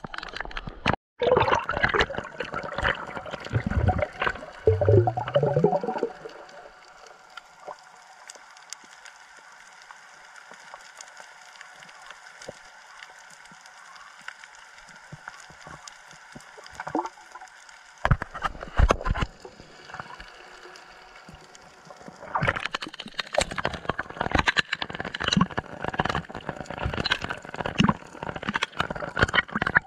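Water splashing and gurgling close to the microphone, in loud choppy spells near the start and through the last third, with a quieter, steadier stretch in between.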